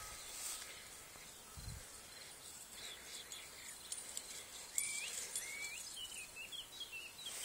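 Faint meadow ambience: a steady high insect sound, with short, high, repeated chirping bird calls starting about three seconds in.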